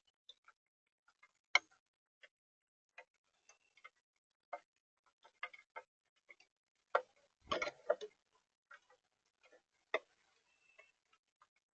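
Irregular sharp ticks and taps on a bird-feeder camera, with a heavier knock and short rattle about seven and a half seconds in.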